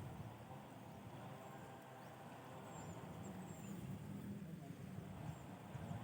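Faint chorus of frogs croaking rapidly in a flooded rice paddy, with a few thin bird chirps above it.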